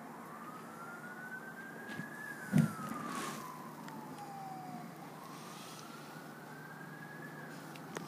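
Queensland Fire and Rescue Service fire truck siren sounding a slow wail that rises and falls about every five seconds. A sharp thump about two and a half seconds in is the loudest sound.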